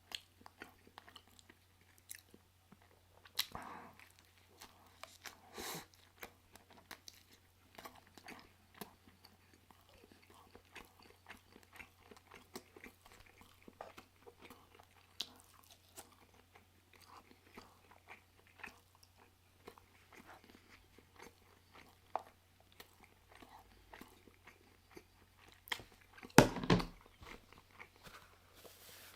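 Close-up mouth sounds of a person chewing and biting into pulled pork sandwiches: many small wet clicks and smacks, with a louder thump near the end.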